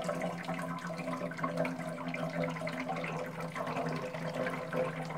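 Water being poured into a repaired Yamaha XT500 steel fuel tank, a steady splashing fill, to leak-test freshly welded seams around the front mounts. A steady low hum runs underneath.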